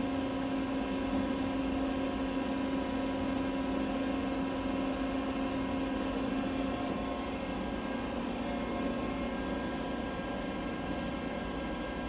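Steady mechanical hum: a strong low drone with several fainter higher tones over a constant hiss, without rhythm or change.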